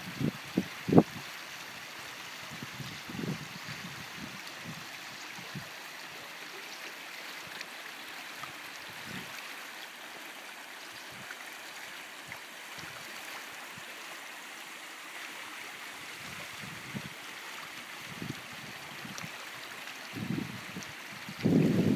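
Muddy stream rushing over a shallow stony riffle: a steady hiss of running water. A few short low bumps about a second in, and a louder low rumbling starting just before the end.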